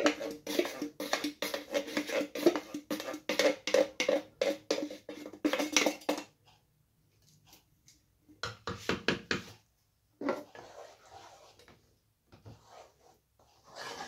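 Wooden spoon scraping the inside of a metal tomato can: quick scrapes and knocks against the tin with a ringing tone for about six seconds. After a short pause the spoon stirs and scrapes in the pot of sauce in short spells.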